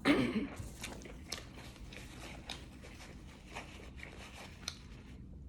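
Close-up chewing and biting on a fried chicken wing, with scattered crunches and wet mouth clicks. A short, loud vocal sound at the very start.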